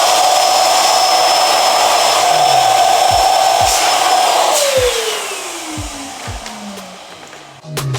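Small electric appliance motor running loud and steady with a high whine, then switched off about four and a half seconds in, its pitch falling as it winds down.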